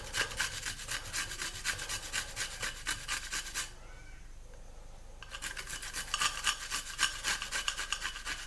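Shallots being grated on a cheese grater: quick rasping strokes, several a second, with a pause of about a second and a half midway.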